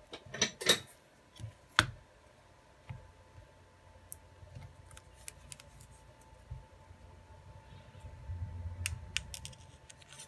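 Hands handling a Redmi 9A/9C replacement LCD screen and the phone's plastic mid-frame: a flurry of small clicks and rustles in the first two seconds, the sharpest click about two seconds in, then sparse taps and a cluster of light clicks near the end.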